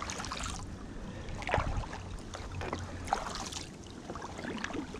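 Kayak paddle strokes splashing and dripping in the water, one about every second and a half.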